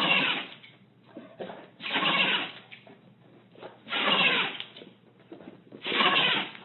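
An animal calling four times, about two seconds apart, each call lasting under a second.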